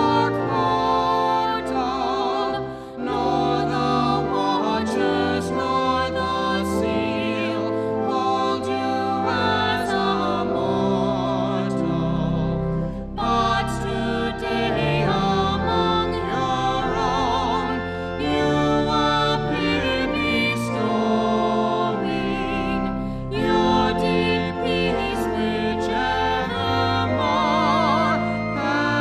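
Classical-style singing with wide vibrato over sustained instrumental accompaniment.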